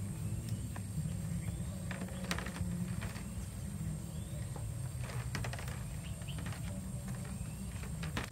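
Eggshells clicking and tapping against a metal wire grill rack and against one another as eggs are set into it by hand: scattered light clicks, a few at a time, over a steady low hum.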